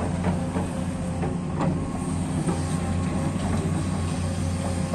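Komatsu PC200 hydraulic excavator's diesel engine running with a steady low drone while it digs and moves wet mud.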